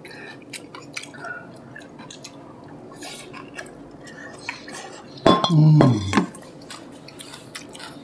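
Dishes and cutlery clinking as people eat, with many small taps and clicks of utensils on bowls and plates. About five seconds in, a short voice sound with falling pitch rises above them.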